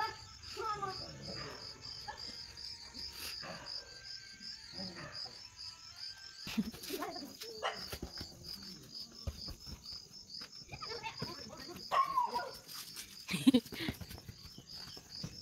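Insects chirping in a steady, even pulse, with faint children's voices in the background. A sharp thud near the end, as a boy kicks a football.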